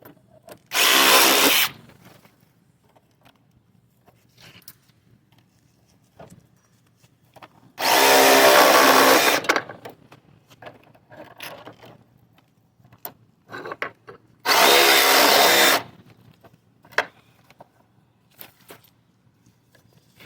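Power drill running in three short bursts, about a second in, near the middle and again near two-thirds through, backing fasteners out of the condenser unit's sheet-metal panels, with light metal handling in between.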